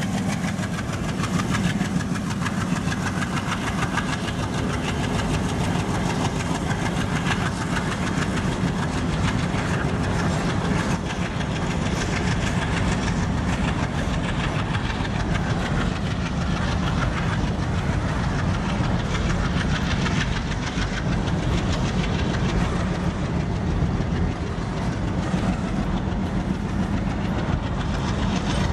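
Long rake of covered freight wagons rolling past close by, wheels clattering steadily over the rail joints, with the diesel engines of the ALCO locomotives hauling it running on as they draw away.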